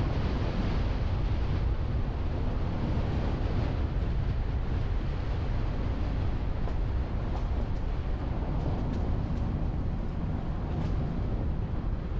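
Wind rushing over the microphone of a car-mounted GoPro HERO 8 camera while the car drives, with steady low road and tyre noise beneath. A few faint ticks come in the second half.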